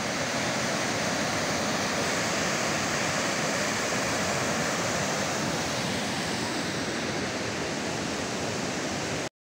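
Waterfall pouring into a pool: a steady rush of falling water that cuts off suddenly near the end.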